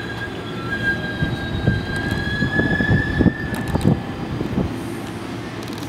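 New York City Subway A train running around a curve on elevated track: a thin wheel squeal swells and then fades about halfway through, over the rumble of the cars, with irregular clacks as the wheels cross rail joints.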